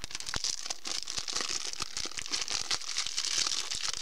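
Clear plastic shrink-wrap on a CD jewel case crinkling and crackling as fingers pick at it and peel it off, with a dense run of small crackles and clicks.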